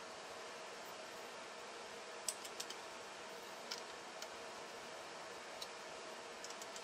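Scattered light metallic clicks from a pliers-type piston ring compressor as its steel band and handles are worked and adjusted, a handful of sharp ticks, some in quick pairs, over a steady hiss.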